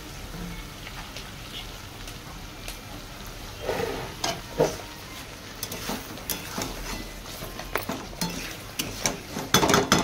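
Potato wedges in masala sizzling in a steel kadai. From about four seconds in, a metal spatula stirs and scrapes against the pan with scattered clinks, busiest near the end.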